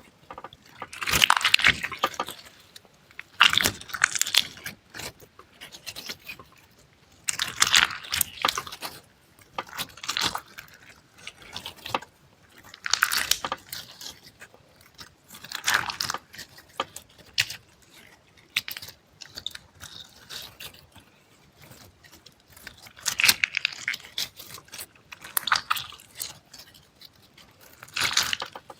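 Close-miked ASMR crunching sounds: about ten short bursts of crackling, one every two to three seconds, with quiet gaps between them.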